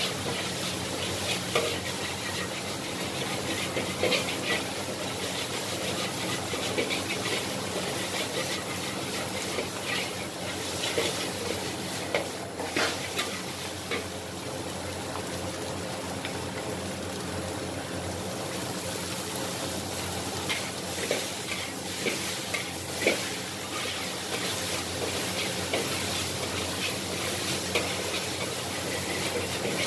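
Kwetiau (flat rice noodles) stir-frying in a wok over a steady sizzle, with a metal spatula scraping and knocking against the wok at irregular moments.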